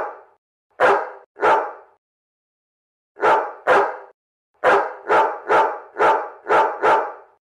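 A domestic cat giving short, dog-like barks: about ten sharp calls, a pair, then another pair, then six in quick succession.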